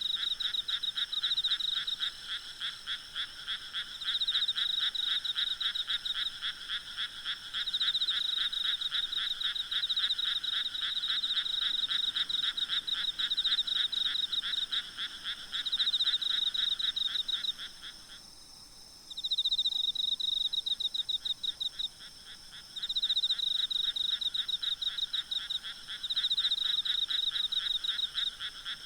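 Night chorus of frogs croaking in rapid, overlapping pulses that swell and ease every few seconds, with a faint steady insect trill above. About eighteen seconds in, the chorus briefly thins, then starts up again.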